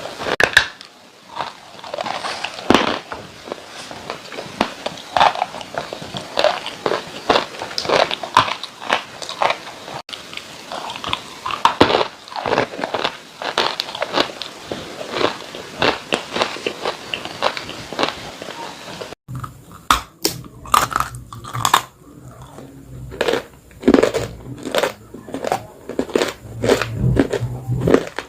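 Dry clay crunching as it is bitten and chewed: a dense, irregular run of crisp crunches. About two-thirds of the way through, the sound cuts abruptly to another take with a low hum underneath.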